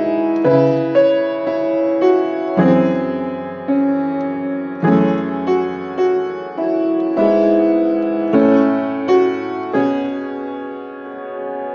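Solo piano played slowly and softly: sustained chords and a melody, with new notes struck about once a second and left to ring, dying away into a short lull near the end.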